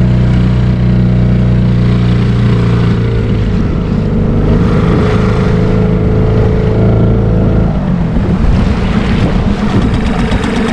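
A small Yamaha 3 hp outboard motor runs steadily as it drives an inflatable kayak through choppy water. Its note shifts a little about three seconds in and again near eight seconds. Wind and water noise run behind it.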